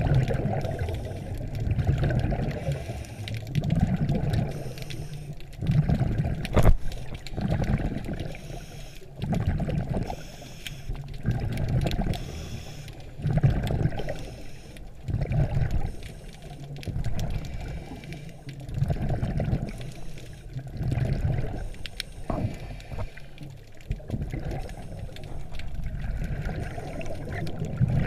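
Scuba regulator breathing and exhaust bubbles, muffled through an underwater GoPro housing: low bubbling rushes come and go about every two seconds.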